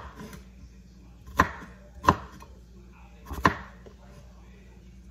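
Knife chopping onions on a cutting board: four slow, separate strokes, the last two close together.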